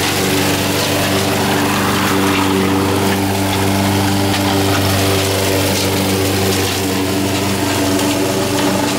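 Honda HR194 push mower's single-cylinder engine running at a steady speed while the mower cuts grass.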